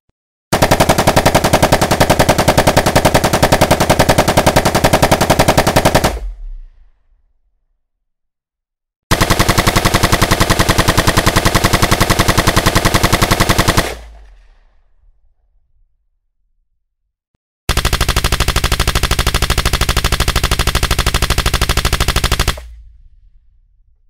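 Automatic rifle firing three long bursts of rapid, evenly spaced shots, each about five seconds long, with pauses of about three seconds between them. Each burst stops sharply and trails off in a short echo.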